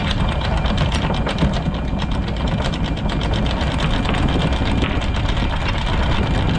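Electric anchor windlass running the anchor chain, a steady motor whine under a rapid, even clicking as the chain links pass over the gypsy.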